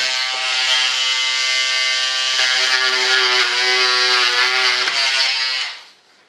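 Small handheld electric rotary tool cutting a slot into the edge of a model-aircraft wing: a steady high whine whose pitch sags a little as it bites, stopping near the end.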